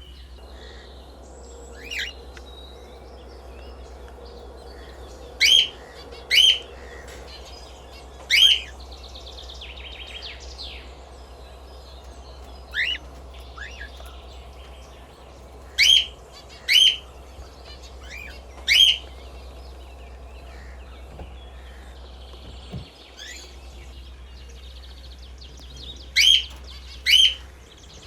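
Pet cockatiels and budgies chirping: loud, sharp calls every few seconds, several of them in quick pairs, with fainter chatter between. A steady low hum runs underneath.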